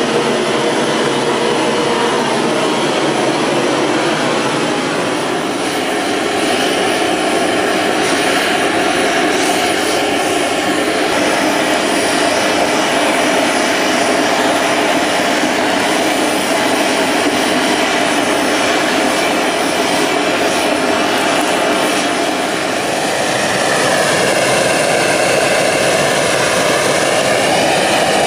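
Gas torch burning with a steady, loud rushing noise as it burns resin off a copper relief panel and anneals the copper. A wavering, whistle-like tone joins in during the last few seconds.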